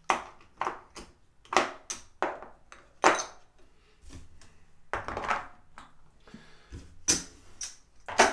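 Casino chips clacking in a dozen or so sharp, irregular clicks as they are picked up, stacked and set into a chip rack.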